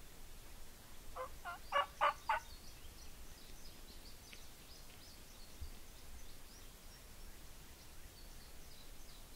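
Wild turkey calling: a quick series of about five loud notes lasting about a second. Small birds chirp faintly through the rest.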